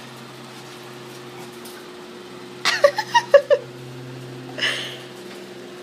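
Yorkshire terrier growling low and steadily while guarding a steak bone from her owner. About three seconds in comes a quick burst of five short, sharp sounds.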